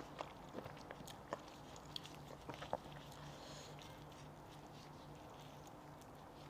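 Mouth sounds of eating cooked goat head meat: scattered small wet clicks and smacks of chewing and tearing over the first few seconds, fading to faint after that.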